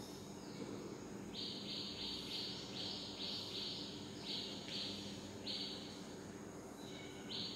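Chalk scratching on a blackboard in a series of short strokes, quick and close together at first, then fewer and further apart, as a figure is drawn freehand.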